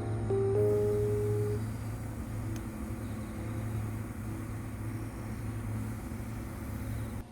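A steady low mechanical hum, like an engine or machine running, with two held pitched tones in the first second and a half.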